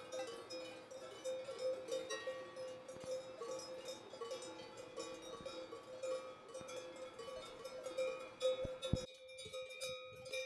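Cowbell on a grazing cow's neck clanking irregularly as the cow moves its head, with a steady ring between the strikes.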